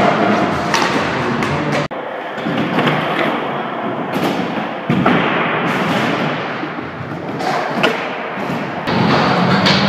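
Skateboard wheels rolling over a smooth concrete floor and wooden ramps, with repeated sharp clacks and thuds of boards popping and landing. The sound changes abruptly a few times.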